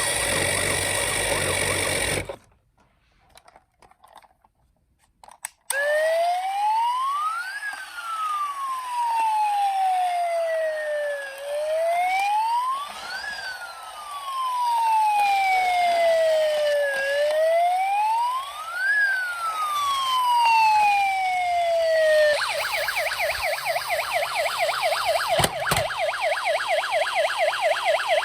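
Police car siren wailing, rising and falling slowly three times, then switching to a fast warble for the last few seconds. Before it come about two seconds of steady noise and a short near-silent gap.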